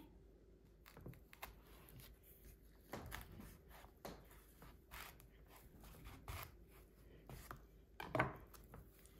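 Raw pumpkin pieces handled on a wooden cutting board: faint scattered knocks and scrapes, with one louder knock near the end.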